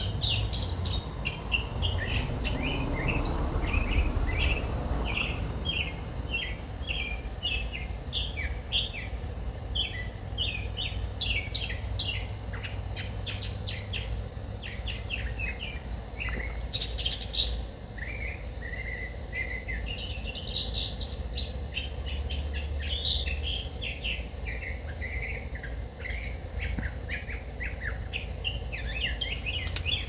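Songbirds chirping continuously in many quick, short calls, over a low wind rumble on the microphone that is strongest in the first few seconds.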